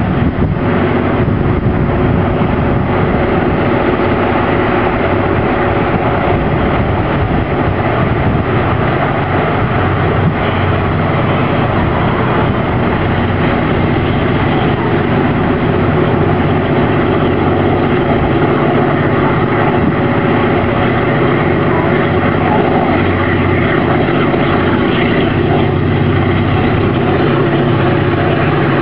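Diesel locomotive hauling a log freight train, its engine running with a steady drone as the train approaches.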